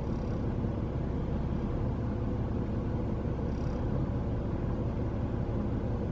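Steady low outdoor rumble, with two faint short high-pitched chirps, one at the very start and one about three and a half seconds in.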